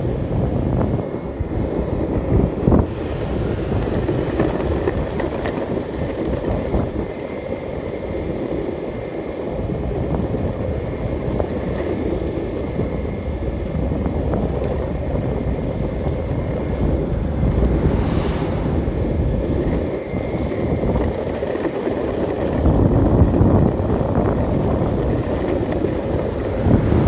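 Skateboard wheels rolling over rough, cracked asphalt: a steady rumble, with wind buffeting the microphone.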